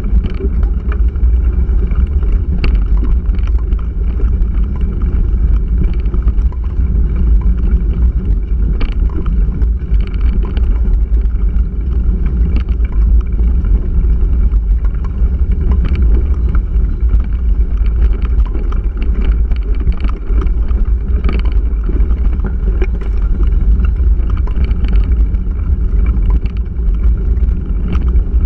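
Mountain bike rolling over a rough, stony dirt trail, heard from a handlebar-mounted camera: a loud, steady low rumble with wind on the microphone and frequent short rattles and knocks as the bike runs over the stones.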